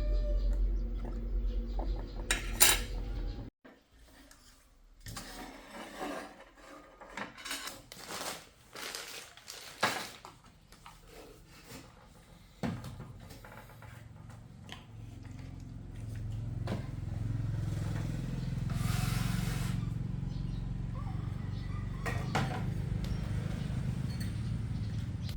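Metal clinks and knocks of tools and parts being handled during an amplifier repair, scattered irregularly through the middle. A steady low hum runs at the start, cuts off suddenly, and comes back about halfway through.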